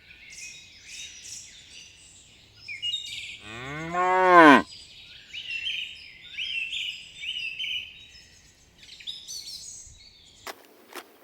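A cow moos once, a single call of just over a second that rises and then falls in pitch, over continual bird chirping. Near the end the chirping cuts off and scattered clicks follow.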